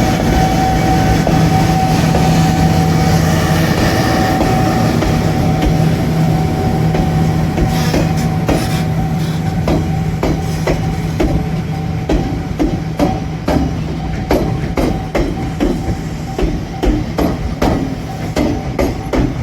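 A train rolling slowly over a level crossing. First a steady hum, then from about eight seconds in a regular clacking of wheels over the rail joints, about two knocks a second.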